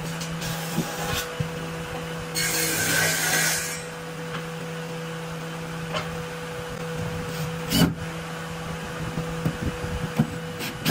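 Cordless screwdriver working screws into wooden boards: a burst of driving lasting about a second and a half, starting some two and a half seconds in, then scattered clicks and knocks from handling the driver and screws, the loudest near eight seconds in. A steady low hum runs underneath.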